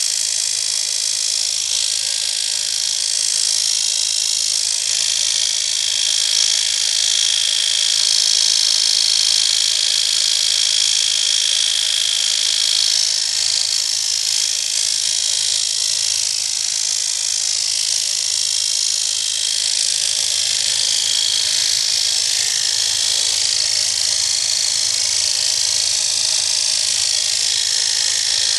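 Failing alternator running: a steady high-pitched whine over a loud hiss, with the tone shifting slightly about halfway through. It is the sound of a bad alternator.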